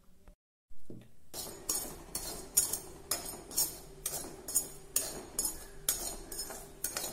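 Perforated steel ladle scraping and clinking against a metal kadai as semolina is stirred while dry-roasting, in regular strokes about two a second, starting about a second in.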